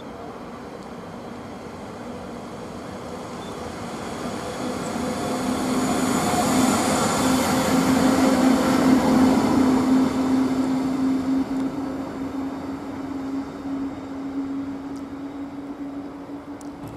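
Red SBB electric locomotive approaching and passing close, with a steady electric hum and the rumble of wheels on rails. It grows loudest about eight to ten seconds in, then eases off as it goes by.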